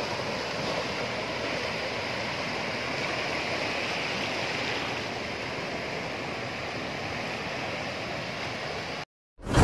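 Tidal floodwater rushing and churning across a road, a steady hiss of moving water. It cuts off abruptly near the end, and a loud ding sounds.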